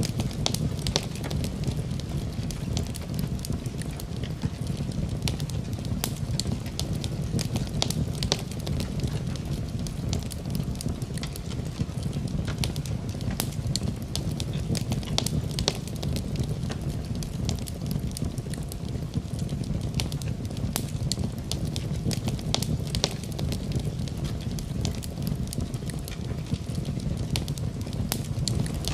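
Fireplace fire crackling, with frequent sharp pops and snaps over a steady low rumble.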